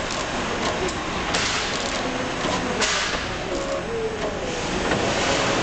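Four-side-seal liquid packing machine running: a steady mechanical clatter, with two sharper noisy strokes about a second and a half apart.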